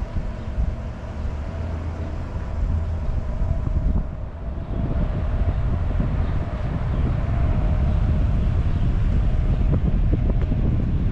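Steady low rumble with wind buffeting the microphone, growing louder about four and a half seconds in.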